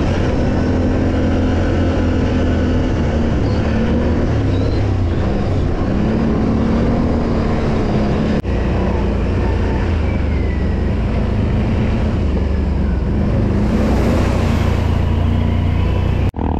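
Quad bike engine running under way, its note rising and falling with the throttle, with a brief break about halfway through.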